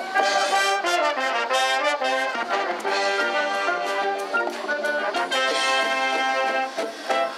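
High school wind band playing, brass to the fore with trumpets and trombones, moving through a series of held notes, with a short break near the end.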